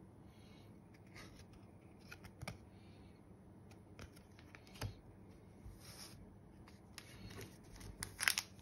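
Faint handling of trading cards: soft slides and scattered light clicks as a card is turned over in the fingers. Near the end, a louder crinkle of foil card packs being picked up.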